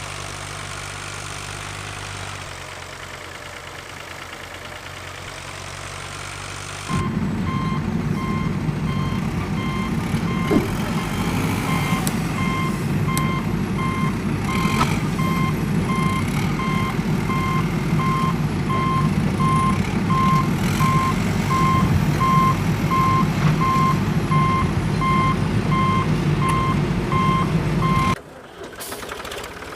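A steady engine drone, then a louder engine rumble with a reversing alarm beeping at an even pace over it. Both cut off suddenly near the end.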